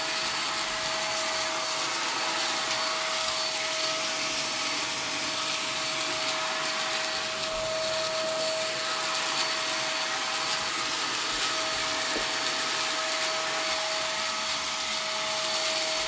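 iwoly V600 corded stick vacuum cleaner running steadily: a constant motor tone over the rush of air, with no change in speed.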